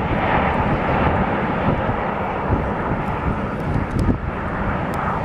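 Formation of Canadair CT-114 Tutor jets flying past, giving a steady jet-engine noise with no breaks.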